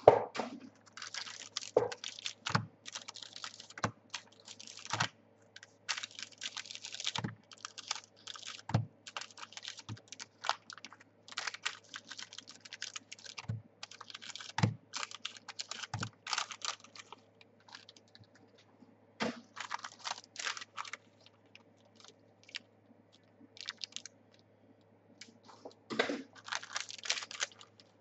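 Trading cards being handled: rapid papery clicking and rustling as cards are flipped and slid through the hands, with soft knocks on the table now and then. The handling thins out past the middle and picks up again near the end.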